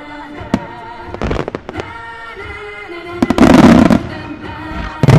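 Starmine fireworks: scattered sharp reports of shells bursting, then a loud, dense volley of explosions about three seconds in that lasts most of a second, with another volley starting near the end. Music plays underneath.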